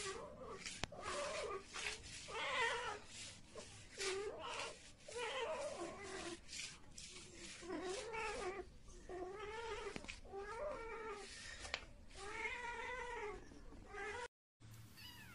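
Domestic cat caterwauling: a run of drawn-out, wavering yowls, one about every second, with a few sharp clicks between them. The yowling stops abruptly near the end, and a fainter, higher wavering mew follows.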